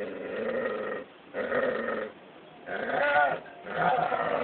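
An animal's drawn-out wavering cries, four in a row, each under a second long, the third rising and falling in pitch.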